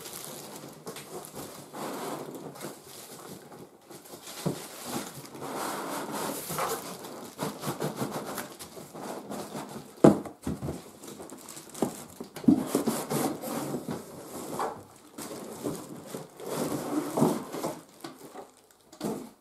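Cardboard box and plastic wrapping rustling, scraping and knocking as a boxed cordless stick vacuum is pulled out of its packaging, with one sharp knock about halfway through.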